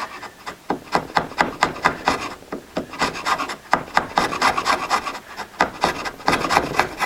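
Wood being worked by hand with an abrasive tool: quick, irregular scraping strokes, several a second.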